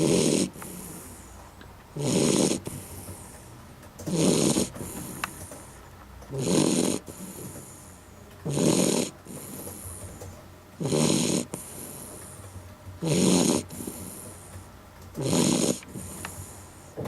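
Beagle snoring in deep sleep: a loud snore on each breath, about every two seconds in an even rhythm, with a softer breath between snores.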